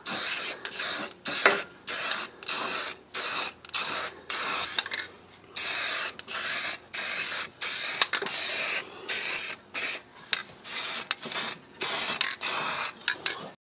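Aerosol can of rust preventative enamel spray paint hissing in many short bursts, roughly two a second, with a few longer blasts in between, as it is sprayed onto a car's underside frame.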